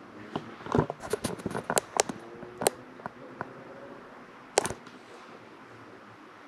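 A string of sharp, irregular clicks and taps, about a dozen, starting about half a second in, with the loudest ones near the start and again toward the end, over faint room noise.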